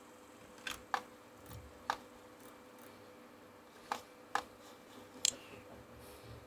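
Computer mouse and keyboard clicking: six short, sharp clicks at irregular spacing, over a faint steady hum.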